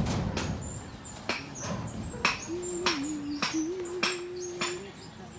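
A series of sharp, irregular knocks, typical of hammering on a house construction site, with a loud knock at the start. In the middle a low hooting tone is held for about two seconds.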